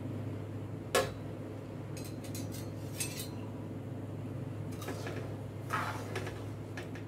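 Steel ladle clinking and scraping against an aluminium kadai while stirring sugar into water for syrup: a sharp knock about a second in, then scattered lighter clinks, over a steady low hum.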